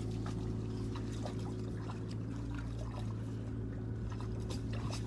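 Water trickling and splashing lightly in small scattered ticks, over a steady low mechanical hum.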